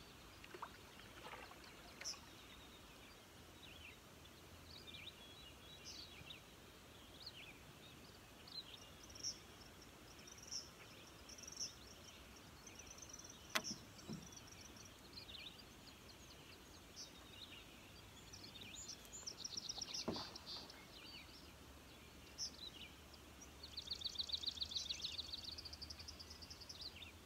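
Faint dawn birdsong: scattered short high chirps and whistles from several birds, with two fast trills lasting a few seconds in the second half. A single sharp click about halfway through.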